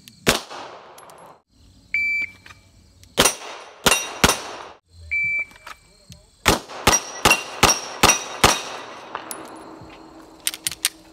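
Strings of 9mm pistol shots from a Beretta 92 Elite LTT, each string started by a short electronic shot-timer beep: one shot at the start, a beep and three quick shots, then a beep and six shots about 0.4 s apart. Steel targets ring when hit.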